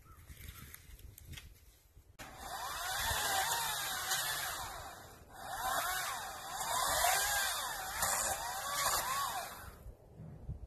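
Greenworks 40-volt DigiPro brushless battery chainsaw limbing trees: a motor whine that rises and falls in pitch as the chain bites into branches. It starts about two seconds in, dips briefly near the middle, and cuts off near the end.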